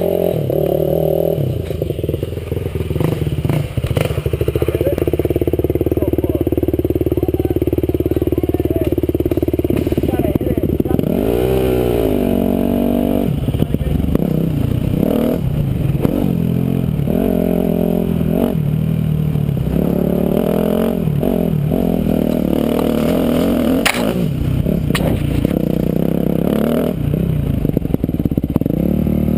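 Motocross dirt bike engine under way, its pitch climbing and dropping repeatedly as the rider works the throttle and shifts gears, heard close from a camera mounted on the bike. One sharp knock late on.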